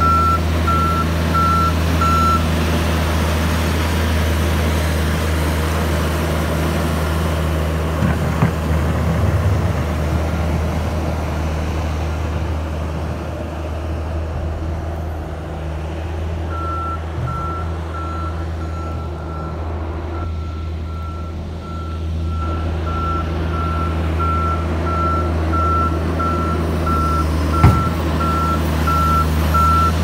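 Heavy vehicle's engine running steadily, with its reversing alarm beeping in an even series that stops a couple of seconds in and starts again about halfway through. Two sharp knocks, one about a quarter of the way in and a louder one near the end.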